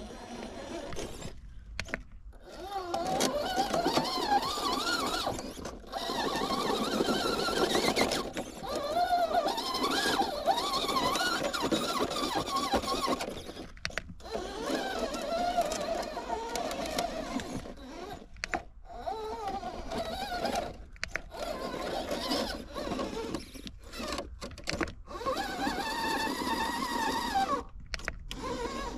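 Whine of a radio-controlled truck's electric motor, rising and falling in pitch with the throttle, with several brief breaks.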